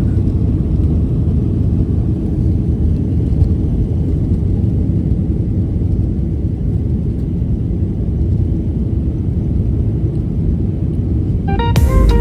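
Steady low rumble of airliner cabin noise in flight, with music coming in near the end.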